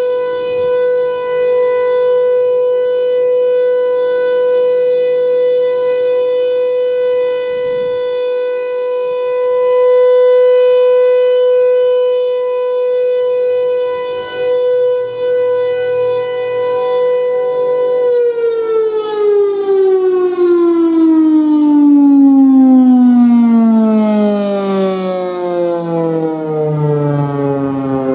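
Federal Signal Thunderbolt 1000 civil-defense siren sounding a loud steady single tone, the Alert signal. About two-thirds of the way through, the pitch starts falling smoothly and steadily as the siren winds down.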